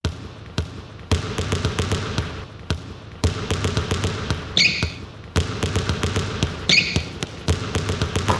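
Basketballs bouncing on a hardwood court with a short, high sneaker squeak about every two seconds, the bounces and squeaks falling into a regular rhythm.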